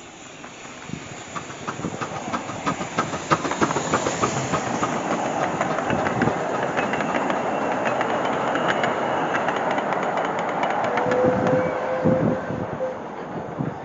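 Miniature steam railway train passing close by: wheels clicking over the rail joints under a steady rumble that builds as the engine and its wagons come past, then fades away. A short steady tone sounds about eleven seconds in.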